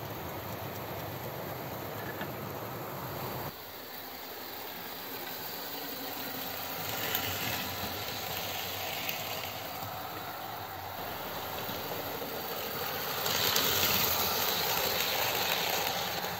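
OO gauge model trains running on the track, a steady mechanical rattle and whirr of wheels and motors. It drops briefly about three and a half seconds in, then grows louder near the end as a train runs close by.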